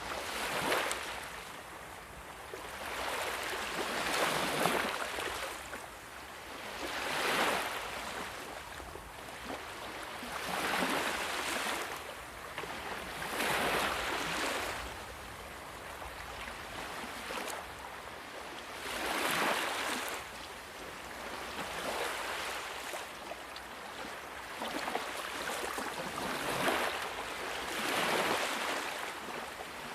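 Sea waves breaking and washing up on a shore. The surf swells and falls back about every three to four seconds.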